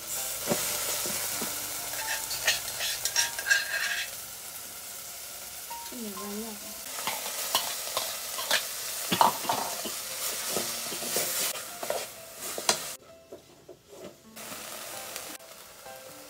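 Food sizzling in a pan as it is stirred, with a utensil repeatedly clicking and scraping against the pan. The sizzle drops away briefly about thirteen seconds in, then returns more quietly.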